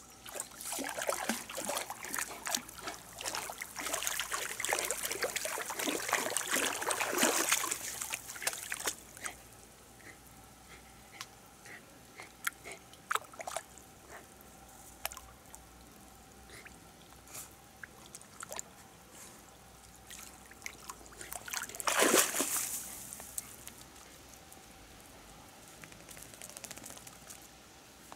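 A dog wading and splashing through shallow river water: steady sloshing for the first nine seconds or so, then quieter trickling with scattered drips, and one loud splash about 22 seconds in.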